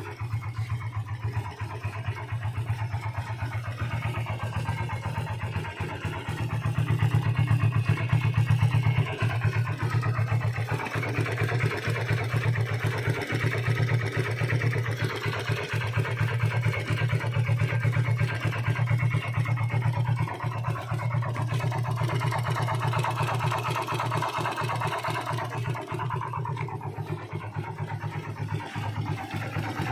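Yamaha LC135 single-cylinder four-stroke motorcycle engine idling with a knocking noise from inside the engine, which the owner takes for a costly internal fault. It runs a little louder for a couple of seconds about seven seconds in.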